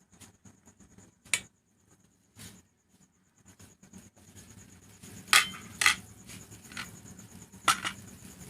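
Kitchen utensils clinking against a cooking pot: a sharp clink about a second in, then three louder ones close together in the second half.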